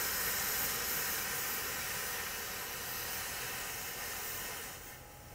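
Hot water being poured into the Slow 'n Sear's water reservoir beside lit charcoal, a steady hiss that fades away near the end.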